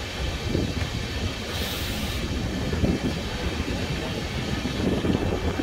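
Express passenger train running on the line: a steady rumble of wheels on track with irregular clatter, and a brief hiss about two seconds in.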